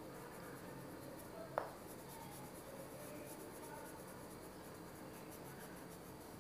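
Orange wax crayon rubbing on paper in faint scratchy strokes while colouring in, with one sharp click about one and a half seconds in.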